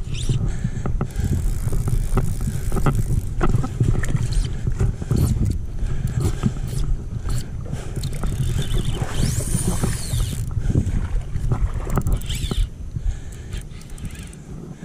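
Orvis Mirage IV fly reel spinning as a hooked golden trevally runs and pulls line off, mixed with rustle and small knocks of handling close to the camera.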